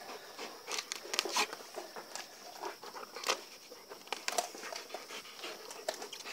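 A large wolfdog panting as it bites, tears and chews at a whole frozen, unplucked chicken, with irregular sharp clicks and snaps from its jaws on the carcass.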